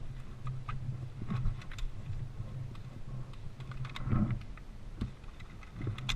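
Irregular light clicks and rustling, with one sharper click near the end.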